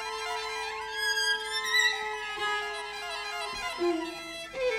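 String quartet (two violins, viola and cello) playing long held notes: one steady lower note carries through the first half and then steps down, while higher notes slide in pitch above it.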